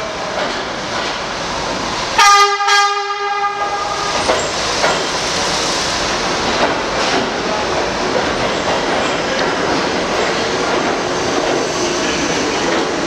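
R68 subway train sounding its horn once, a blast of about a second starting some two seconds in, while it runs into the station along the platform with a steady rolling rumble and a few clicks from the wheels.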